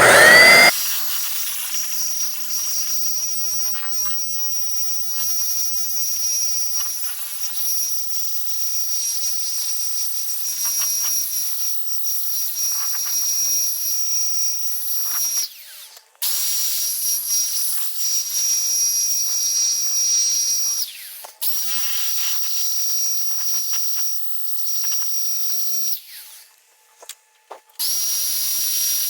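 Electric paint sprayer spraying primer: a steady high whine over the hiss of the spray. It begins with a rising whine as the motor spins up, then stops briefly about three times and starts again.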